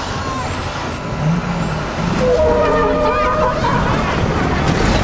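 Semi-trailer truck running close by, the sound growing louder about two seconds in. A brief pitched blare of several steady tones rises over it for about a second.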